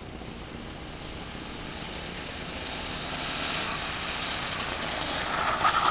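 Manco Critter go-kart's 5 hp single-cylinder engine running as the kart drives toward the listener, growing steadily louder and loudest near the end.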